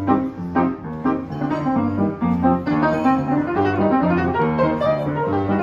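Upright piano played at a quick pace: a steady repeating bass line under busy chords and runs.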